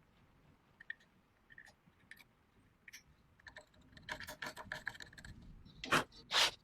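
Hand work on the rifle's metal parts: scattered small clicks, a quick run of clicks, then two loud short scraping strokes near the end.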